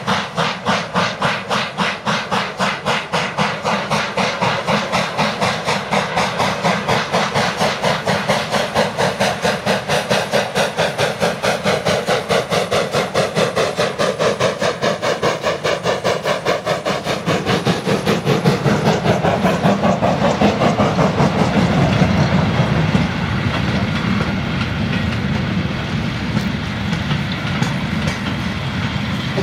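Two FS steam locomotives, 625 100 and 880 051, double-heading a passenger train past, their exhaust chuffing in fast, even beats. About two-thirds of the way through the beats give way to the steadier rumble of the coaches rolling by.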